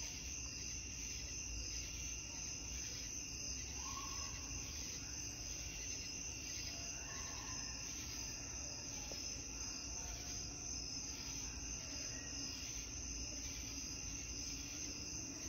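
A steady chorus of night insects chirping, pulsing evenly over a continuous high hum.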